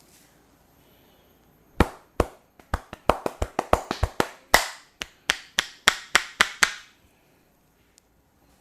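A barber's hands striking in a quick run of about twenty sharp slaps during an Indian head massage, starting about two seconds in and stopping about seven seconds in.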